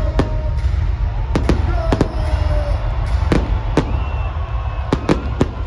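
Fireworks bursting overhead: a quick, irregular string of sharp bangs, more than ten of them, over a steady deep rumble.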